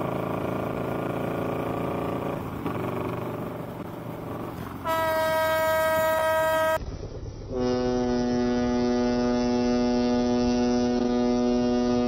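Motorcycle riding along a highway, then long, steady horn blasts. About five seconds in, a high horn sounds for about two seconds. After a brief break, a lower, deeper horn sounds without a break to the end.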